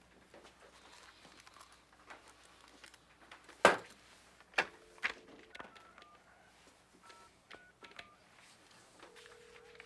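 Desk telephone being dialled: a few handling clacks as the handset is lifted, then two quick runs of touch-tone keypad beeps, and a steady line tone near the end as the call goes through.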